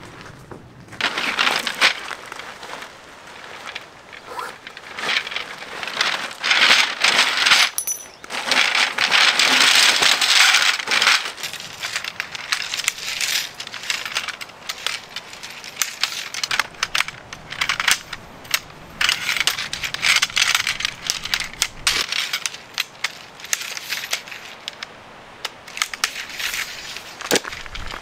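A Polaris D1 tent being pitched by hand: nylon fabric rustling and crinkling, broken by many sharp clicks and clatters. The rustling is loudest about six to eleven seconds in.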